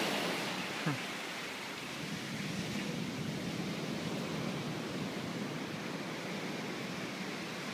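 Steady hiss of surf on a sandy beach, louder in the first second and then falling to an even wash.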